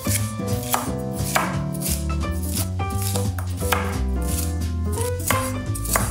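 Chef's knife slicing red bell pepper on a wooden cutting board, the blade knocking the board at an uneven pace, under background music with a steady bass.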